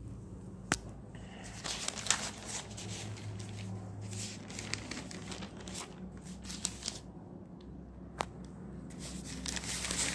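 Newspaper pages rustling and crinkling as the paper is handled and turned, in irregular bursts with many small crackles. Two sharp ticks stand out, one under a second in and one about eight seconds in.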